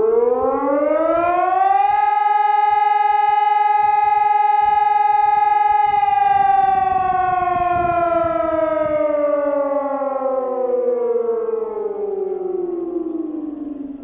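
Helin HES electronic siren sounding the German test signal ('Probe'): one tone that rises over the first two seconds, holds steady for about four seconds, then slides slowly down in pitch and fades near the end.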